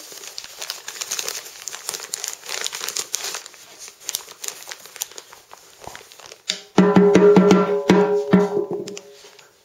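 Wrapping paper crinkling and rustling. About six and a half seconds in, a loud electronic toy tone starts and lasts about two and a half seconds, while a toddler strikes a toy hand drum several times.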